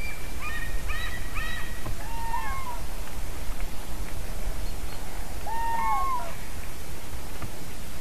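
Common cranes calling in the distance: a run of arched trumpeting calls in the first two seconds or so, then another pair of calls about five and a half seconds in, over a steady hiss.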